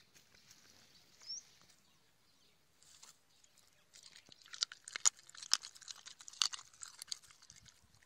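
A dog chewing and crunching a raw fish. The irregular, rapid crunches set in about halfway through.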